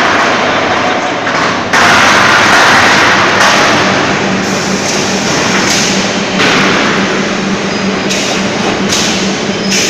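Heavy-gauge steel coil cut-to-length line running, with loud rushing machine noise. The noise surges abruptly about two seconds in and shifts several times after that, and a steady hum joins it about four seconds in.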